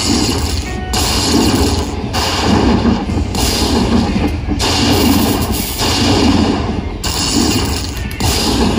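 Aristocrat Egyptian Jewels Dollar Storm slot machine playing its win rollup as the credit meter counts up: a loud run of booming crashes, about one a second.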